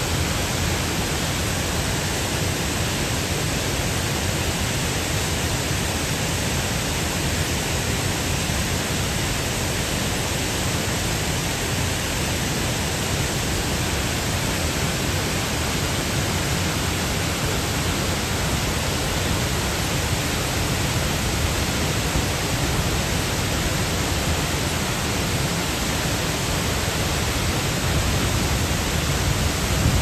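Jägala waterfall: water pouring over the rock ledge in a steady, unbroken rush, a little louder near the end.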